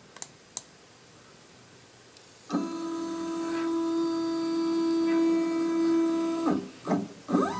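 The Stainless OX CNC router's Z-axis stepper motor whines at one steady pitch as it slowly lowers the spindle onto the touch plate during a Mach3 probing move. It stops on contact about six and a half seconds in. Just before the end it starts again with a quickly rising pitch, driving the spindle back up.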